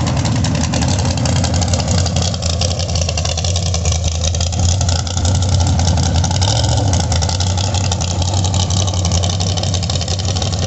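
Race pickup's engine idling at the starting line of a sand drag strip, a steady low rumble with small shifts in pitch.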